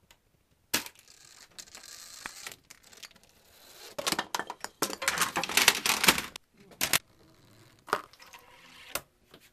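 Rube Goldberg machine running: a Nerf blaster fires with a sharp click about a second in, and a ball rolls along a ramp with light ticks. From about four to six and a half seconds in comes a dense clatter of small knocks and rattles as pieces of the chain reaction tip over, followed by a few single knocks.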